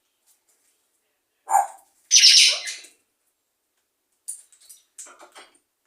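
Pet parrot squawking: a short call about one and a half seconds in, then a longer harsh screech, followed by softer clicking chatter near the end.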